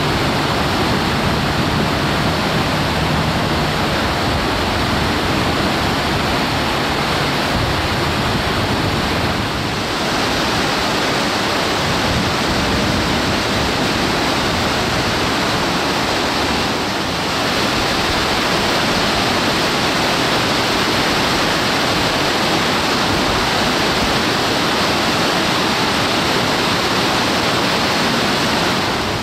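River rapids: whitewater rushing over and around boulders in a loud, steady wash of water noise, dipping slightly twice.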